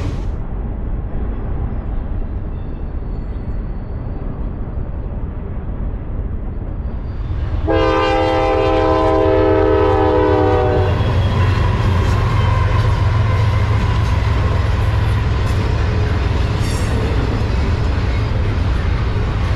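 Norfolk Southern diesel freight locomotives rumbling as they approach and pass a grade crossing, with the horn sounding one long blast of about three seconds near the middle. Double-stack intermodal cars then roll by, their wheels clicking over the rail.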